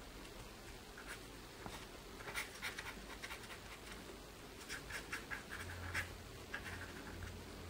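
Faint pen strokes scratching across a sheet of paper: quick, short hatching strokes in two flurries, with a faint low hum coming in about two-thirds of the way through.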